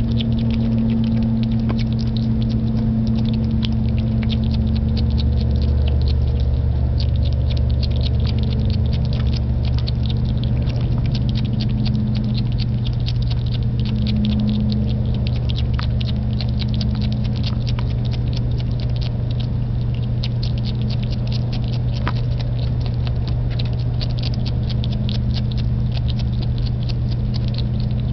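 Skunk eating mealworms: rapid, continuous small crunching clicks of chewing, over a steady low hum.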